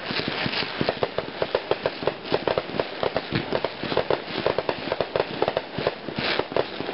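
Aerial fireworks going off in a dense barrage: a rapid run of sharp pops and bangs, many each second, over a steady crackle.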